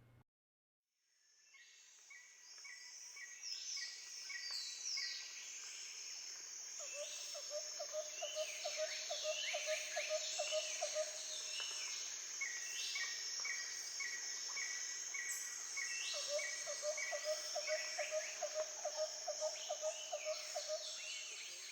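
Outdoor birdsong with several birds chirping and calling over a steady high insect drone, fading in after a second of silence. A lower, rapid trill comes twice, each time for a few seconds.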